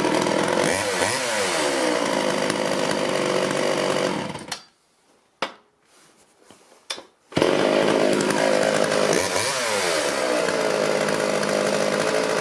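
Sachs-Dolmar 105 two-stroke chainsaw running, its pitch briefly dipping and rising. About four and a half seconds in it is shut off by its stop switch, now grounding properly through the refitted screw. After about three seconds of quiet it is pull-started again and runs on.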